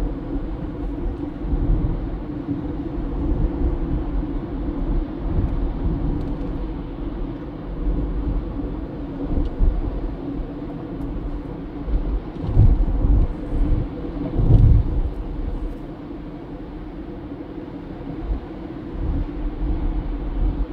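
Car driving along the road: a steady low rumble of road and engine noise, with two louder low thumps a little past the middle.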